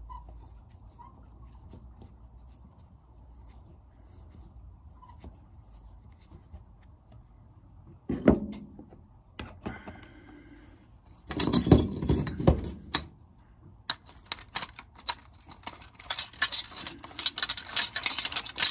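Metal parts of a miner's flame safety lamp being handled and screwed back together. After a quiet start there is a sharp knock about eight seconds in, then scraping, and near the end rapid metallic clicks and scrapes as the fuel vessel is fitted back on.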